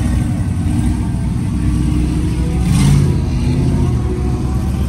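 Lifted mud truck's engine running loudly, revving up briefly about three seconds in before settling back.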